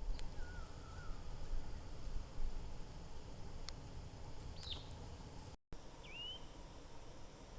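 Outdoor forest ambience: a few short, scattered bird calls, one wavering, one slurring downward and one rising, over a steady low rumble. The sound drops out for a moment and resumes shortly before the end.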